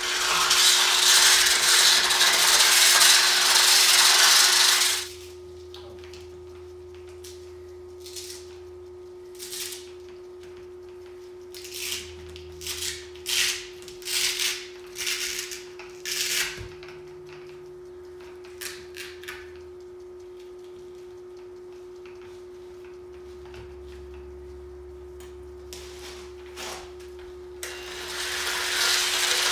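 Electric rotary car polisher with a coarse 50-grit diamond pad grinding a wet concrete slab for the first five seconds, then switched off. A stretch of short scratchy handling noises follows as the Velcro pad is worked, over a faint steady hum. The polisher starts again and runs up near the end.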